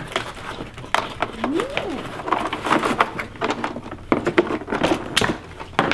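Hard plastic parts of a Nerf Zombie Strike Crossfire Bow clicking and knocking as the pieces are handled and fitted together, with a short hummed voice sound about a second and a half in.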